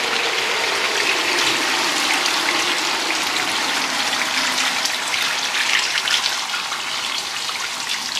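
Duck curry cooking in a hot pan with a steady hiss as it is stirred with a wooden spoon; water is poured into the pan near the end.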